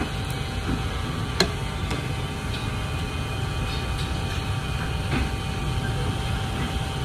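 Small handheld electric fan running close by: a steady low rumble of moving air with a faint constant whine. There is one sharp click about a second and a half in.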